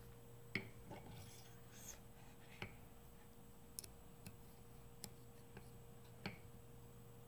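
Sparse, faint clicks and taps of small metal parts being handled: a hex key worked into the set screw of a TTS arbor to snug the indicator onto it. A steady faint hum runs underneath.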